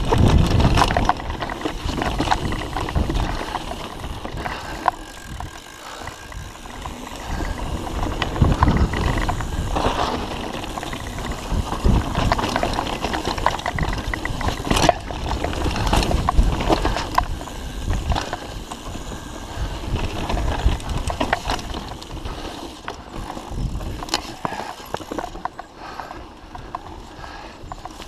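Mountain bike riding fast down dirt singletrack: tyres on dirt with the bike rattling and knocking over bumps and roots, surging in loudness and easing off near the end.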